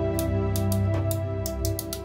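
Soft instrumental background music, with a run of sharp clicks from a ratchet crimping tool closing on a ring terminal, the clicks coming closer together in the second half.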